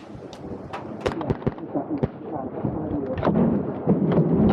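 Several sharp cracks of .22 rimfire rifles firing on a mini-rifle range, unevenly spaced, with a low rumbling noise building toward the end.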